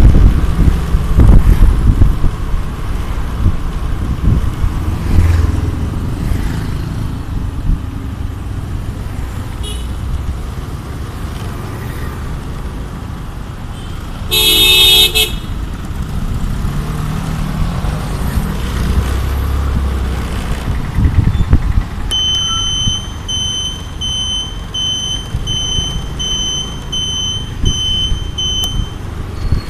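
Riding a two-wheeler in town traffic: a steady low rumble of engine and road noise. A vehicle horn honks once for about a second around the middle. Near the end comes a high electronic beeping, about two beeps a second, for several seconds.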